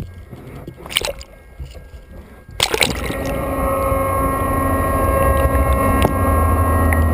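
Seawater sloshing and splashing against a ship's hull, with a few sharp splashes. About two and a half seconds in it cuts abruptly to a steady hum with several fixed tones: the ship's machinery and propeller noise heard underwater.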